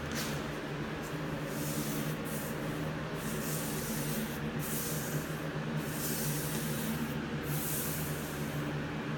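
Paintbrush laying primer onto bare sanded wood trim: repeated rubbing brush strokes, each a soft swish, one every second or so, over a steady low hum.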